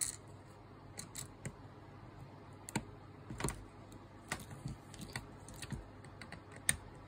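Irregular small clicks and ticks from a screwdriver driving M3 screws through a tight 3D-printed plastic part into an aluminium servo horn. The screws click as they are pressed through the plastic holes.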